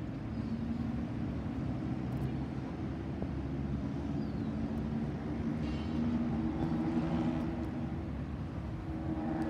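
Steady low engine drone with a couple of held low hums, like distant motor traffic over a city.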